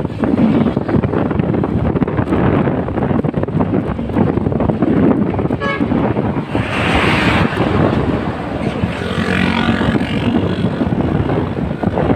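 Wind buffeting the microphone while riding along a road, mixed with the engines of passing motor traffic.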